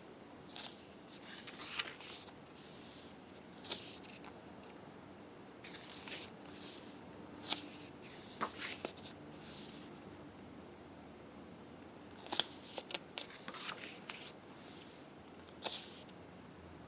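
Pages of a heavy photobook being turned by hand: short papery swishes and flicks at irregular intervals, about a dozen in all.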